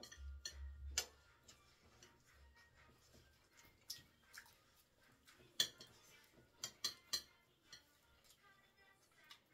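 Metal forks and spoons clicking and scraping against ceramic plates of rice and stew, faint and irregular, with the sharpest clink about five and a half seconds in and a few more shortly after.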